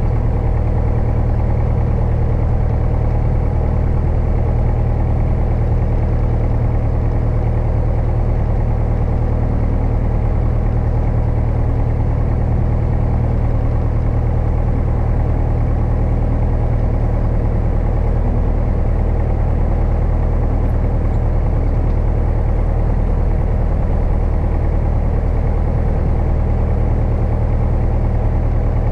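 Single-engine light aircraft's piston engine idling steadily with the propeller turning, heard from inside the cockpit.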